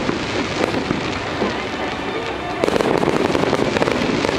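Fireworks crackling: a dense rush of fine pops and hiss, getting a little louder a little past halfway.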